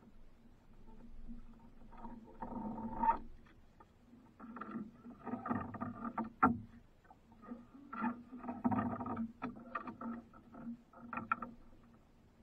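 Water slapping and sloshing against the hull of a small outrigger fishing boat in four irregular bursts, with a few sharp knocks, over a faint steady low hum.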